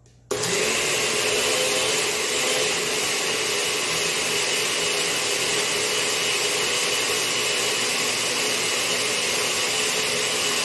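Countertop blender switched on just after the start, running steadily as it purées roasted tomatillos, jalapeño, garlic and onion into a green salsa.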